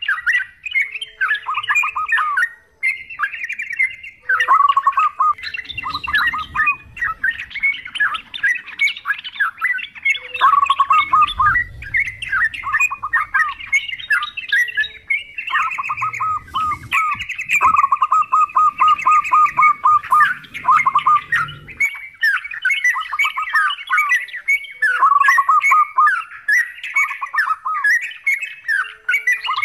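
Yellow-vented bulbuls chattering: several birds' rapid, overlapping calls running almost without a break.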